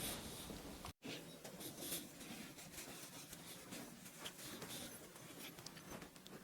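Faint rubbing and light scuffing of a damp cloth being wiped over a freshly soldered copper pipe joint, with a few small ticks.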